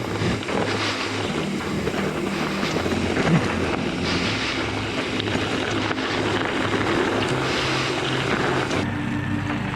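Wind buffeting the microphone and rough rumbling noise while a gravel bike is ridden, with background music underneath; the wind noise eases near the end.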